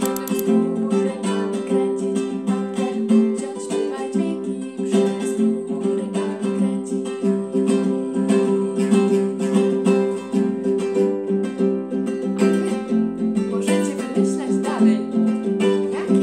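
Small acoustic guitar strummed in a steady, even rhythm, playing the song's chords without words.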